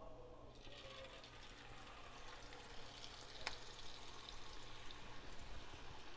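Thenkuzhal dough pressed into hot oil, sizzling and bubbling as it starts to fry. The sizzle comes in about half a second in and builds, with a light click about three and a half seconds in.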